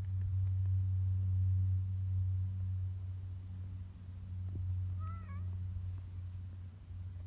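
Tabby cat purring in a low, steady rumble while being stroked, with one short, wavering meow about five seconds in.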